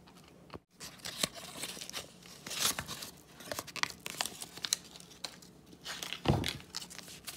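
Crinkly packaging being handled and torn, a run of crackling and rustling, with a dull thump about six seconds in.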